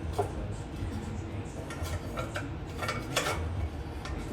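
Small clinks, taps and scrapes of engine parts and tools being handled during reassembly, a few scattered knocks with a cluster about two to three seconds in, over a low steady hum.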